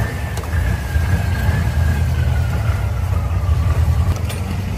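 Motorboat engine running steadily, a loud low rumble, with a thin high whine that slowly falls in pitch.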